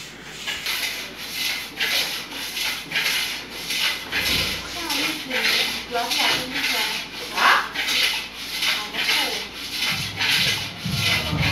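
Homemade cable pull-down machine scraping in an even rhythm, a little over two strokes a second, as its weight plates slide up and down the steel post with each fast rep.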